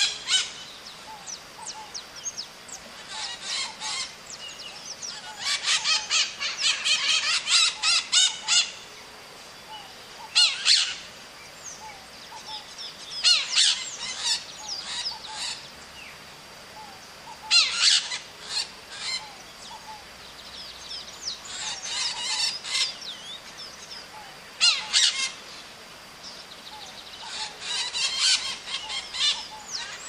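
Green parrot (maritaca) calling in bursts of rapid, high, squawking notes, a new burst every three to five seconds.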